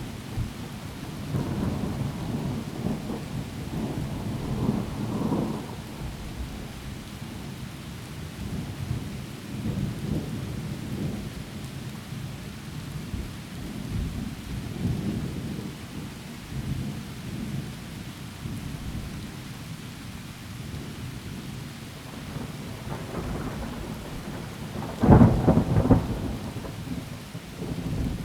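Thunderstorm: steady heavy rain with thunder rolling and rumbling on and off, and one louder, sharper thunderclap about 25 seconds in.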